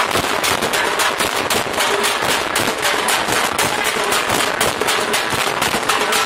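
Several hand-held drums beaten with sticks together in a loud, fast, dense rhythm of many sharp strokes a second.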